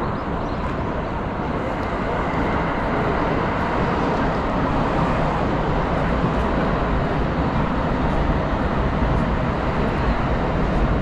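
Steady road traffic noise of a busy city street, an even wash of passing vehicles with no single event standing out, growing slightly louder partway through.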